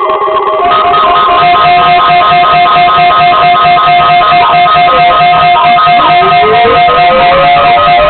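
Guitar-led music, loud, with a long held tone over it and a rising glide near the end.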